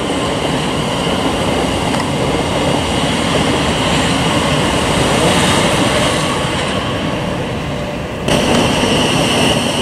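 Class 700 electric multiple unit running along the track, giving a steady rumble of wheels on rail with a steady high whine over it. The sound steps up abruptly about eight seconds in.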